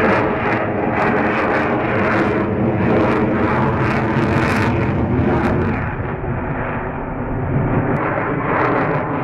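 The twin AL-41F1S turbofans of a Sukhoi Su-35S fighter at high power during a tight manoeuvre: loud, rushing jet noise with a crackling edge. It eases off a little about six seconds in, then builds again near the end.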